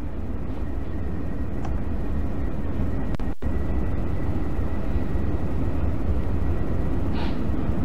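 Steady low rumble and hiss of room background noise, with a brief dropout about three and a half seconds in and a faint steady high whine after it.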